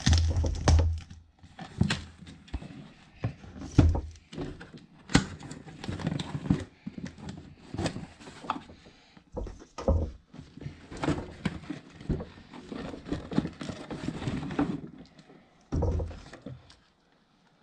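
A cardboard box being slit open along its packing tape with a knife, then its flaps pulled back and the packages inside handled: irregular scrapes, rustles and knocks of cardboard, with heavier thumps near the start and near the end.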